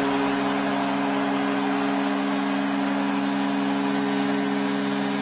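Arena goal horn sounding one long, steady low chord of several held tones for a home-team goal, over a cheering crowd.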